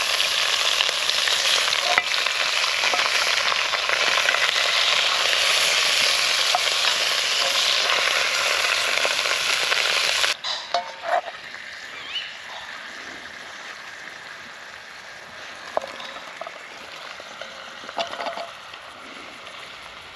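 Short ribs sizzling loudly as they sear in a cast-iron Dutch oven over a campfire, with light scraping and clicks from a wooden spatula turning the meat. About ten seconds in the sizzle cuts off suddenly, leaving a much quieter hiss with a few light knocks.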